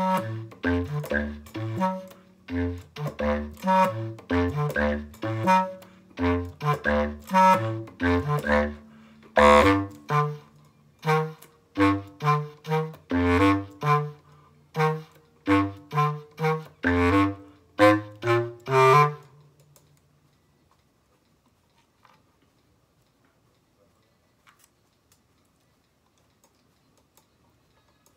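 Solo bass clarinet playing a quick passage of short, detached low notes. It stops about two-thirds of the way through, leaving near silence with a few faint clicks.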